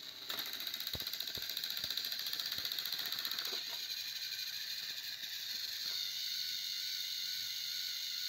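Small electric motors and plastic gearboxes of battery-powered Plarail toy trains whirring steadily under load as two locomotives push head to head along the track. The tone shifts slightly about six seconds in.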